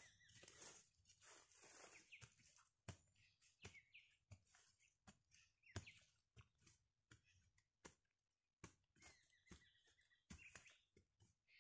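Faint, scattered clicks and knocks of a bamboo trap being handled and set among leaf litter, with a few short bird chirps.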